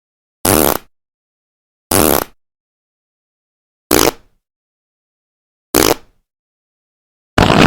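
Short meme sound-effect clips played one after another: four brief sounds roughly one and a half to two seconds apart with dead silence between, then a longer one starting just before the end.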